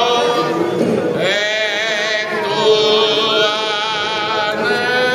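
Greek Orthodox Byzantine chant sung by several voices, with men's voices prominent, holding long wavering notes and moving into a new phrase about a second in.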